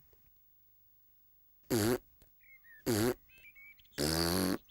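A cartoon toddler piglet's voice making three short buzzy vocal sounds, the last one the longest, with faint high chirping sound effects between them.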